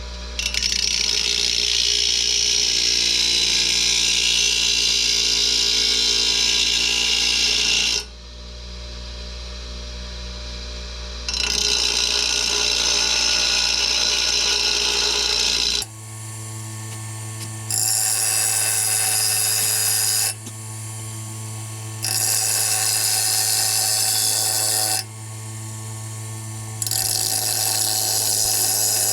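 Electric grinder running, with a chainsaw muffler's mounting face pressed against the side of the grinding wheel in five long grinding passes, the motor's steady hum heard alone between them. The face is being ground flat to seal against a new gasket.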